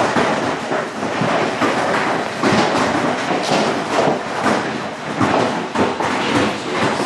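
Hail and heavy rain pelting the window glass: a dense, continuous clatter of hailstone hits over the rush of the downpour.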